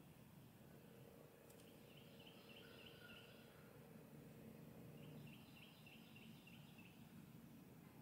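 Near silence: faint outdoor ambience with distant birdsong, two short series of quick high notes, the first about a second and a half in and the second about five seconds in. A single faint click comes just before the first series.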